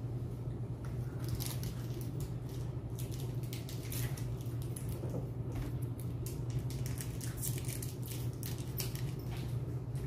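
Crinkling and crackling of small candy wrappers being handled and unwrapped, in irregular clusters of sharp clicks over a steady low hum.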